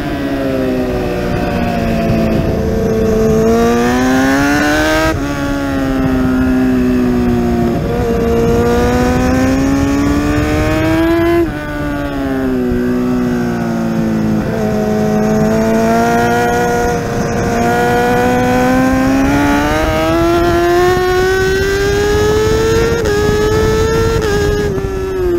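Kawasaki ZX-10R inline-four racing motorcycle engine heard from on board at full racing pace, with wind rush. The engine revs climb hard with quick upshifts that drop the pitch in sudden steps. The revs fall away twice under braking, once about halfway through and again near the end.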